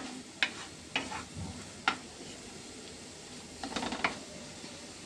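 Wooden spatula stirring and scraping spice paste around a non-stick frying pan over a steady sizzle, with a few sharp knocks against the pan and a cluster of scrapes near the end. The masala is being fried down in oil.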